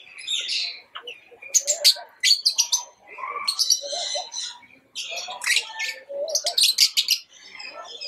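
A group of lovebirds chattering: rapid, shrill chirps and squeaks, with a few short breaks.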